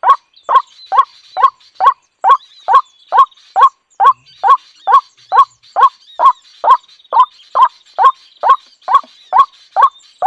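A bird's short call repeated steadily about twice a second, each call identical, with faint high chirping in the background.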